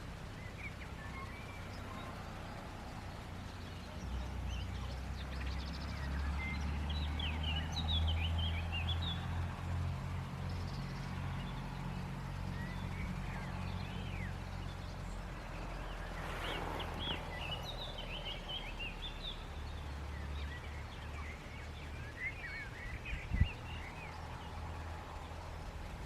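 Small birds chirping in short runs of high notes over a low steady rumble that swells about four seconds in and eases after about twenty seconds.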